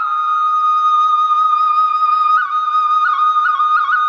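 Background music: a flute holds one long note, then plays quick ornamental flicks around it in the second half.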